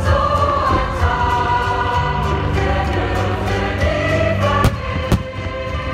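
Choral music with sustained sung chords, the soundtrack of a fireworks display. Near the end, two sharp firework bangs about half a second apart cut through the music.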